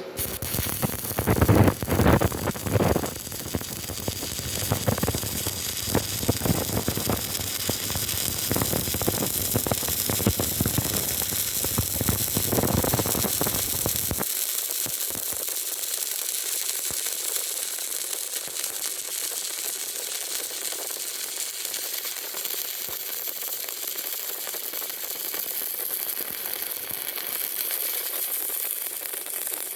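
Stick-welding arc on steel reinforcing bar, crackling and sizzling. About fourteen seconds in, the deep part of the sound drops away, leaving a steady thinner hiss.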